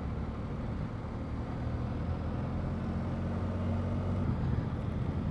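BMW R1250 GS Adventure's boxer-twin engine running at low road speed, a steady low hum with road and wind noise. The hum grows a little stronger about two seconds in and eases again near the end.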